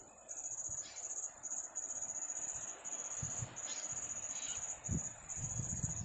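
Insects droning in a high, steady buzz that breaks off briefly every second or so. A couple of short calls come through near the middle, and low rumbles come now and then toward the end.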